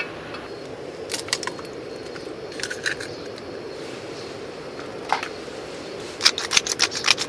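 Small clicks and taps of cooking gear over a steady hiss. About six seconds in, a quick rattling run of small clicks begins as seasoning is shaken out over raw eggs in a bowl.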